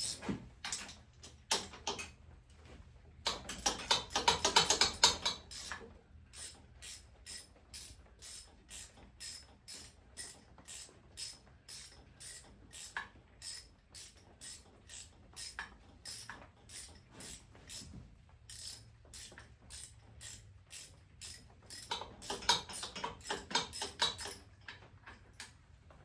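Hand ratchet wrench with a 7/16 socket clicking while turning out engine top-end bolts: fast runs of clicking at the start and near the end, and slower steady clicks, about two or three a second, in between.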